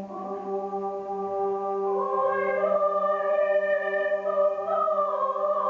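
Choir singing long held chords over a steady low drone note, growing louder as higher voices come in about two seconds in.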